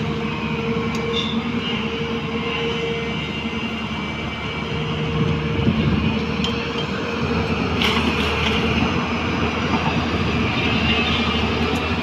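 Hyundai crawler excavator's diesel engine running under load with a steady hydraulic whine as the boom digs and swings. About six seconds in, a bucketful of soil pours into the tipper truck's body and the sound swells briefly.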